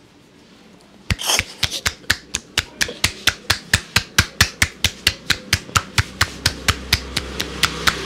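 Rapid percussive tapping of an Indian head massage: the masseur's palms, pressed together, chop down on the scalp in sharp claps about four times a second, beginning about a second in.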